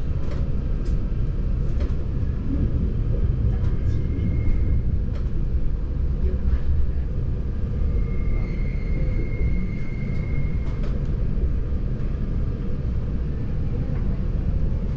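Steady low rumble of a Matterhorn Gotthard Bahn narrow-gauge train running on the rails, with occasional faint clicks. A thin high whine comes in briefly about four seconds in and again for a few seconds from about eight seconds in.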